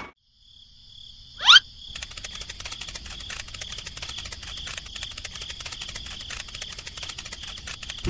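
A quick rising whistle-like sweep about one and a half seconds in, then a steady chirring of crickets.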